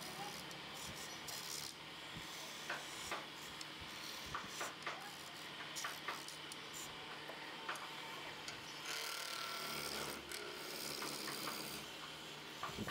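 Wood lathe running with a wooden chair-leg blank spinning as it is worked by hand, a steady scraping sound over the steady hum of the lathe motor, with scattered small clicks.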